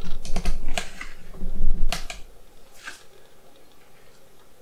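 Pages of a full-colour paperback guidebook being flipped and handled: a few crisp paper rustles and clicks with some low bumping in the first three seconds.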